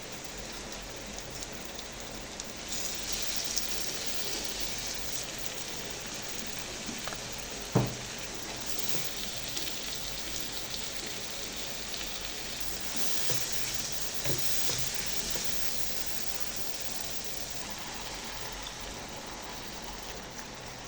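Food frying in a pan, a steady sizzle that swells and eases a few times as it is stirred. There is a single sharp knock about eight seconds in.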